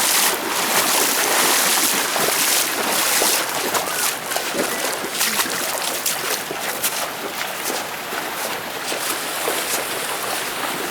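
Rushing river water: a steady, loud hiss of flowing water, with scattered small clicks and knocks over it.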